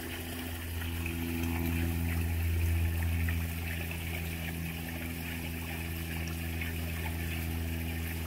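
A steady low motor hum, swelling a little a second or two in, with running water over it.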